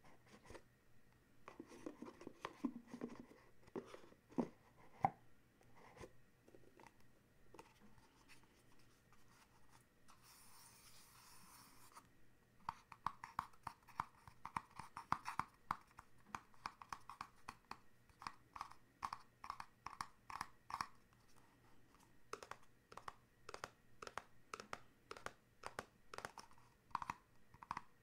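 Fingertips and fingernails tapping quickly and lightly on small black cardboard boxes, with handling knocks and a short scratchy rub over the cardboard before the tapping starts, a little under halfway through.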